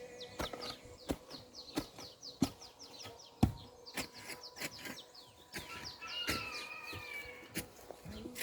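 A bird sings a rapid run of short, falling chirps, with a gliding call later on. Under it runs a string of sharp, irregular knocks, the loudest about halfway through.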